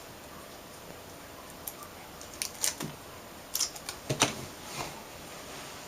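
Aluminium foil being handled and pressed into place: a few short, crisp crinkles and clicks, the loudest about four seconds in.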